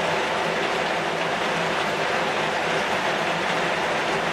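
Heavy rain falling steadily on a zinc-sheet roof and on the leaves of a red-shoot (pucuk merah) tree, a dense even rush of drops with no let-up.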